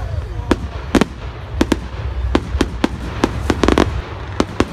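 Fireworks bursting overhead: a rapid, irregular run of about a dozen sharp bangs and cracks, some in quick clusters, over a low background rumble.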